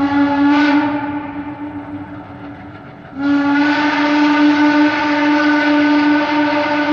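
Steam whistle of the Pacific Coast Shay #2 geared steam locomotive blowing as it departs: a long blast that tapers off in the first two or three seconds, then a second long blast starting about three seconds in and held to the end.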